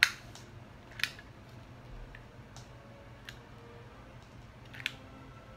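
Handheld plier stapler squeezed on the edge of a paper sheet, making metal snaps and clicks. The sharpest snap comes right at the start, another about a second in, a couple of fainter clicks follow, and one more snap comes near the end. The stapler is failing to drive a staple through the paper.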